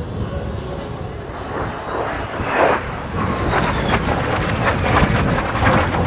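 USAF F-35A Lightning II's single F135 afterburning turbofan at high power, growing steadily louder, with a rough crackle setting in about halfway.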